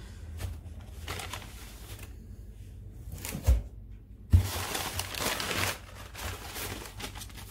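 Crumpled kraft packing paper rustling and a cardboard shipping box being handled, with two dull thumps about a second apart midway, followed by a louder stretch of rustling.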